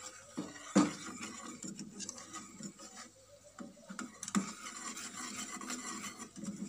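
Wire whisk stirring caramel sauce in a stainless steel saucepan, scraping with light clicks against the pan, and a sharper knock about a second in and again near the middle. The cornstarch has just gone in to thicken the caramel.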